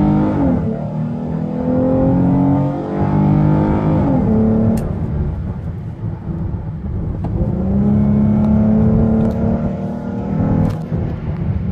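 2015 Dodge Charger engine breathing through a Flowmaster exhaust as the car accelerates, heard from inside the cabin. The pitch climbs and falls away at an upshift about four seconds in, runs lower for a few seconds, then climbs again and drops at another shift near the end.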